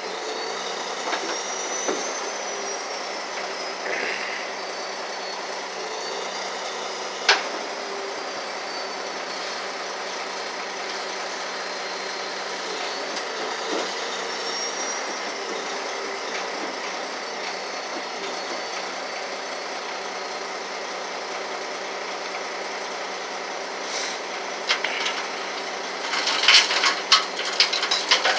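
Heavy truck engine idling steadily, with a sharp metallic click about a quarter of the way through. Near the end, a quick run of metal clanking and rattling as tow chains are handled and dropped on the pavement.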